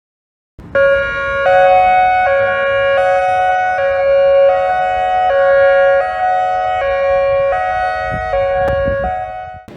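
ACA Alertronic AL-4000 dual-tone electronic warning siren sounding a hi-lo alarm: two steady tones alternating about every three-quarters of a second. It starts about half a second in and stops just before the end.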